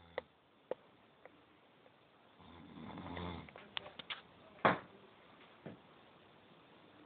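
A person snoring: one drawn-out snore a little over two seconds in, swelling over about a second, with several sharp clicks scattered around it, the loudest about two thirds of the way through.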